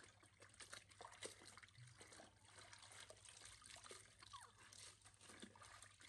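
Faint splashing and trickling of water as clothes are scrubbed by hand in a plastic basin, with water running off a lifted wet cloth back into the basin.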